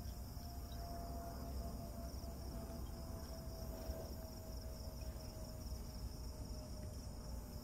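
Crickets chirping in a steady pulsing chorus, over a low rumble. A faint steady hum sinks slightly in pitch over most of the stretch.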